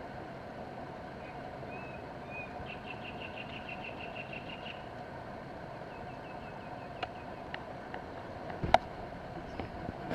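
Steady outdoor background hum with short high chirps and a rapid chirping trill in the first half. Later come a few sharp clicks and one loud sharp thump.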